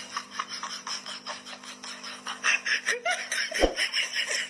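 A person laughing in quick, breathy, rhythmic gasps, louder and partly voiced from about two and a half seconds in, with a single dull thump about three and a half seconds in. A steady low hum runs underneath.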